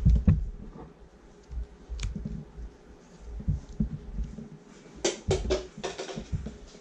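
Fingers pressing and tapping small lumps of play dough against a hard tabletop: irregular soft thumps and knocks, with a quick run of sharper clicks about five seconds in.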